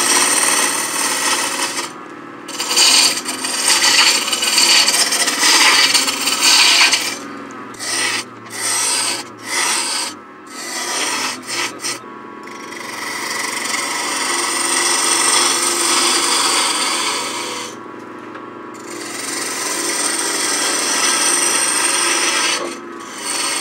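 Spindle roughing gouge cutting a spinning wood blank on a lathe, making sweeping cuts to shape a cove: a steady rushing hiss of shavings coming off. The hiss breaks off briefly whenever the gouge leaves the wood, several times in quick succession in the middle.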